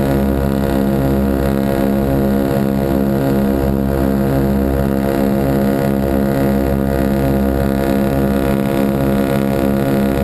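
Ford Trimotor's radial engines running in flight, a loud, steady drone with an even pulsing throb, heard close to a wing engine and its propeller.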